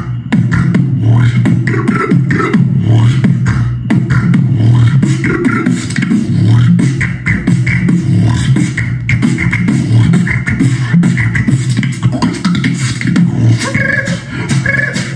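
Beatboxing: fast mouth-made percussion over a continuous low vocal bass. Near the end a higher pitched vocal line joins in.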